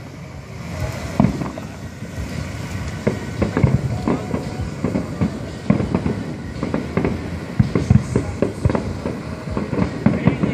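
Fireworks display: a rapid, irregular series of bangs and crackling pops from shells and comets going off.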